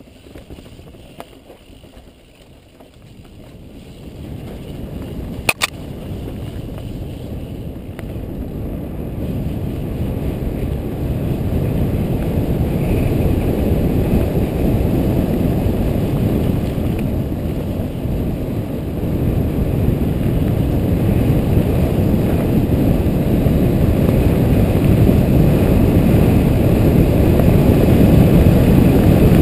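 Wind buffeting a helmet camera's microphone, mixed with tyre rumble on a dirt trail, during a fast mountain-bike descent; it is quiet for the first few seconds, then grows louder as speed builds. A single sharp knock comes about five and a half seconds in.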